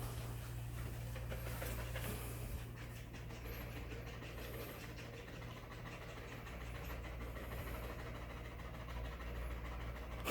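Dogs panting hard from the heat, over a steady low hum.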